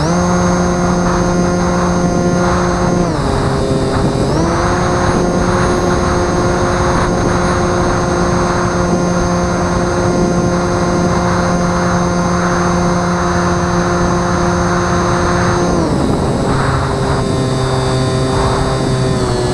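Electric brushless motor and propeller of a Bixler 2 RC plane whining at steady throttle settings: the pitch drops about three seconds in, climbs back a second later, holds, then falls again near the end as the throttle is eased back. Wind noise runs underneath.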